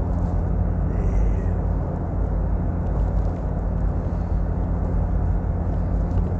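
Steady low rumble of a car heard from inside its cabin while driving at speed: engine and tyre noise on the road surface.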